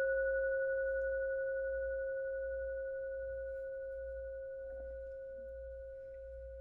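A singing bowl struck once, its mid-pitched note ringing on with a few higher overtones and slowly fading away.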